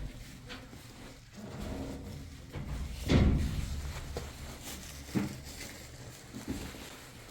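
A few knocks and bumps, the loudest a heavy thump about three seconds in.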